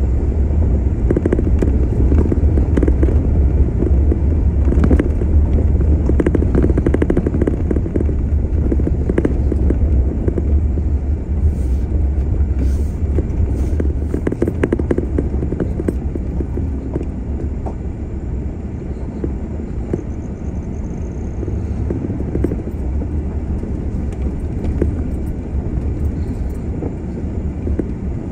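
Off-road vehicle driving along a gravel track: a steady low rumble of engine and tyres, with occasional ticks and knocks in the first half, easing a little quieter in the second half.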